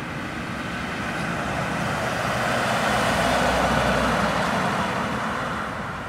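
A car driving past fast along a street: tyre and engine noise swelling as it approaches, loudest about three and a half seconds in, then fading as it goes away.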